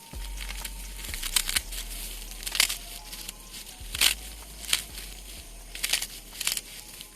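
Dry plant stalks crackling and rustling in short, irregular bursts about a second apart, over a faint steady low hum.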